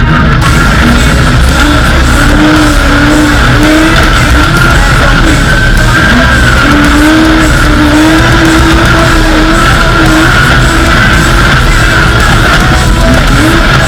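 Off-road race vehicle's engine running hard, its pitch rising and falling, with heavy rock music laid over it.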